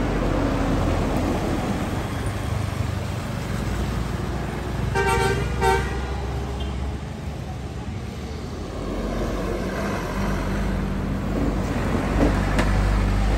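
Road traffic: trucks and motorbikes passing with a steady low engine rumble, and a vehicle horn giving two short honks about five seconds in. A vehicle passes close near the end.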